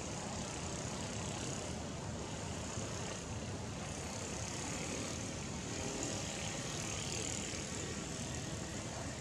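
Steady outdoor background noise: a low rumble with a high hiss, unchanging and without any distinct events.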